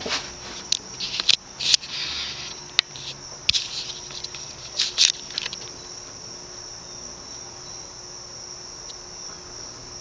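SMC Laguna KA36 industrial ceiling fan running on its solid-state variable-speed control, its motor giving off a 60 hertz hum. A steady high-pitched tone sits over it, and several sharp clicks come in the first half.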